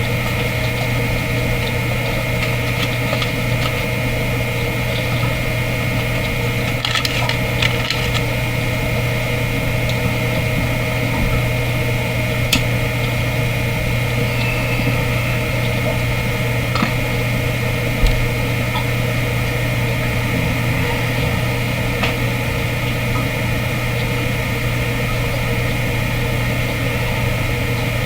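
Steady mechanical hum with an even noise hiss and a constant higher tone, with a few faint clicks scattered through it.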